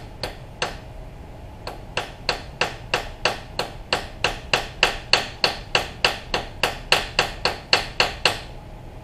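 A hammer tapping over and over, about three strikes a second, with a short pause about a second in. The blows get louder as they go on and stop shortly before the end.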